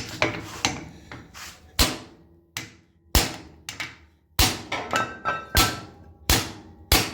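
Hammer blows on the outer CV joint of a Mitsubishi Outlander XL drive shaft, struck roughly once a second with some quicker taps between, each hit sharp with a short metallic ring. The blows are an attempt to knock the joint off the shaft, and it does not come off.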